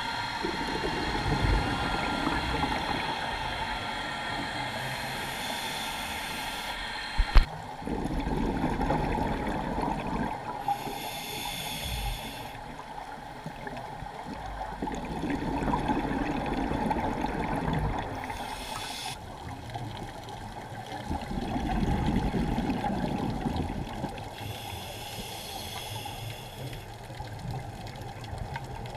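Scuba diver breathing through a regulator underwater: each inhale is a hiss of about two seconds and each exhale a low, gurgling rush of bubbles, repeating about every six seconds. A faint steady hum runs underneath, and a single sharp knock comes about seven seconds in.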